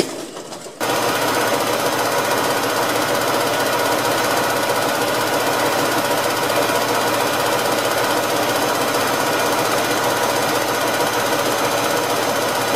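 Heavy truck's diesel engine idling with its air compressor running, under a steady hiss of compressed air flowing out of the open hose fitting at the tire inflation system's frame hanger. The sound cuts in about a second in and holds level.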